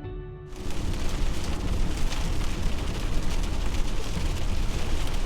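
Wind buffeting the microphone outdoors, a steady loud rushing noise with a deep rumble. It cuts in about half a second in as the music stops.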